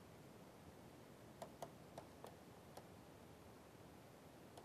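A handful of faint, irregular ticks of a stylus tip tapping on a tablet screen during handwriting, over near-silent room tone.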